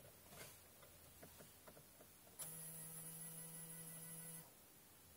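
Near silence: a few faint ticks, then about two seconds in a faint steady electrical hum with a high whine that switches on and off abruptly, from a Pioneer AVH-Z5150BT head unit powering up on its first boot.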